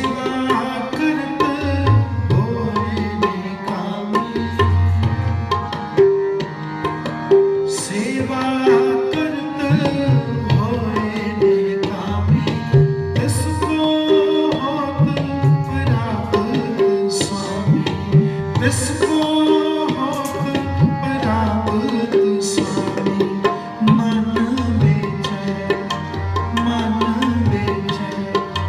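Tabla playing a rhythm under a sustained melody in Sikh kirtan music, with deep bass-drum strokes and sharp high strikes.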